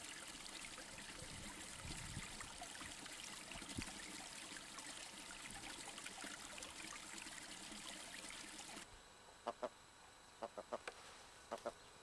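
A steady, faint rushing noise cuts off abruptly about nine seconds in. A red grouse then gives about seven short, clipped calls in quick pairs and triplets.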